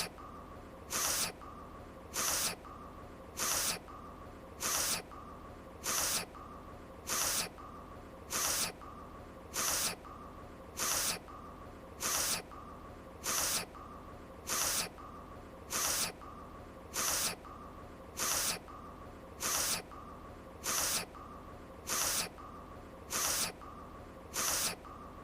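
An anime character's sniffle: one short, sharp sniff through the nose, repeated about every 1.2 seconds as an exact loop, over a faint steady background tone.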